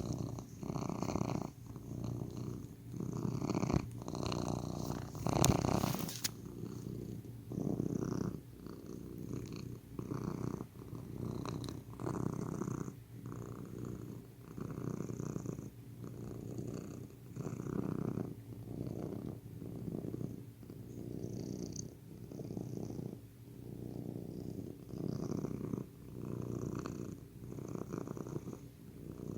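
A domestic cat purring close up, the rumble swelling and fading with each breath about once a second. It is louder for the first six seconds or so, then settles into softer, even cycles.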